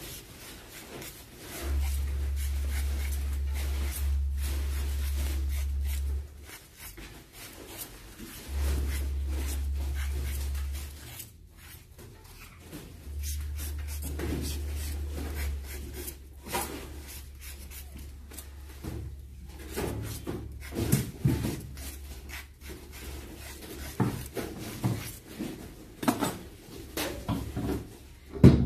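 Low electrical hum switching on and off three times, a few seconds each, as a transformer soldering gun is triggered to solder the enamel-scraped copper leads of a rewound electric motor stator. In the second half the wire leads and tools are handled with rustling, scraping and light knocks, the sharpest knock near the end.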